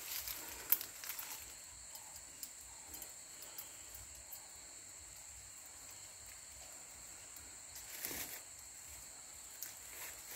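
Steady high-pitched drone of insects in the riverside vegetation, with scattered light rustles and clicks as a cast net is gathered in the hands. A sharp click comes just under a second in, and a brief rustle about eight seconds in.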